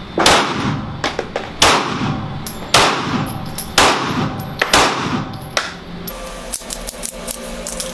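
A Gen 5 Glock 17 9mm pistol firing five slow aimed shots about a second apart, each with a short echo. Fainter sharp clicks fall between the shots and near the end.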